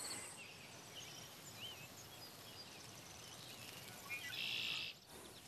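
Faint outdoor field ambience with scattered short bird chirps. A high steady cricket trill fades out in the first half second, and a brief hissing buzz, the loudest thing here, comes about four seconds in and lasts about half a second.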